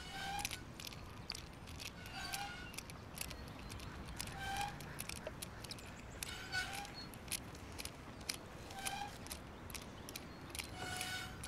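Playground roundabout squeaking as it turns, a short squeal about once every two seconds, with scattered faint clicks.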